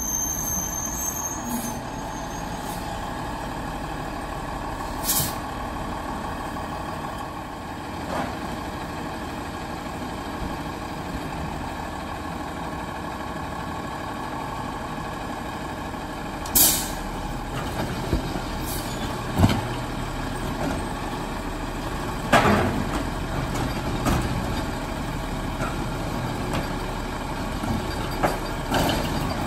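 Peterbilt automated side-loader garbage truck running steadily as it pulls up and stops, with a short air-brake hiss about five seconds in and again past halfway. In the second half its side arm works a wheeled cart, with a run of clanks and thumps.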